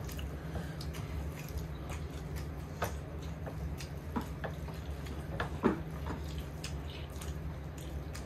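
Eating sounds: wet chewing and small mouth clicks, with a few sharper clicks about halfway through, over a steady low hum.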